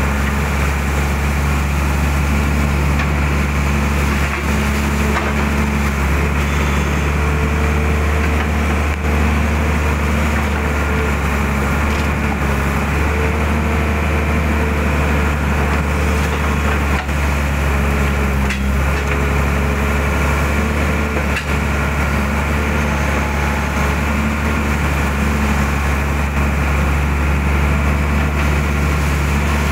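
Mitsubishi hydraulic excavator's diesel engine running steadily while the machine digs mud, heard from the cab, with a few brief knocks.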